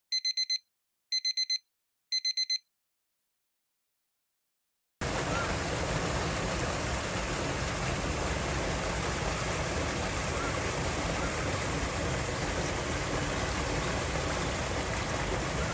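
Three quick runs of electronic beeps, each about half a second long and about a second apart, then a silent gap. About five seconds in, a steady rush of water at the seal pool begins and runs on evenly.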